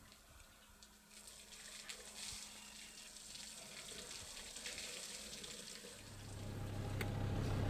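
Water splashing and spilling as an African elephant squirts a trunkful into its mouth, with many small drips and spatters. About six seconds in, a steady low hum comes in and grows louder.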